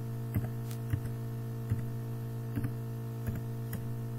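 Computer keyboard keys pressed one at a time, about six keystrokes at uneven spacing, typing out the end of an email address. A steady electrical mains hum runs underneath.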